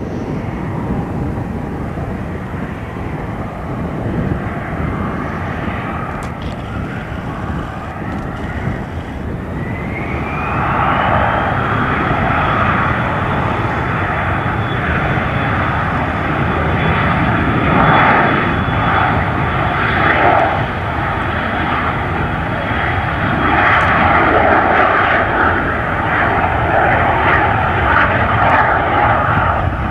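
Aircraft turbine engine spooling up: a whine rises in pitch about a third of the way in, then holds steady and high over the loud rush of the engine.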